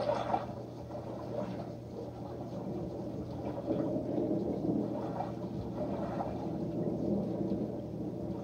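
Thunderstorm sound effect played through speakers by an aquarium lighting controller in its lightning mode: rolling thunder rumbles that swell and fade over a steady background hiss.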